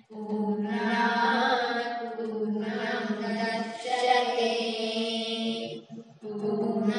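Boys' voices chanting a Kannada devotional song in long, held notes, breaking for breath just before the start and again about six seconds in.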